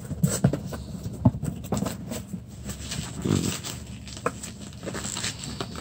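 Cardboard shipping box and its packing being handled and opened: scattered rustles, scrapes and small knocks.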